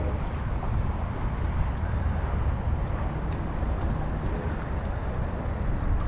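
Wind buffeting the microphone, a steady, uneven low rumble.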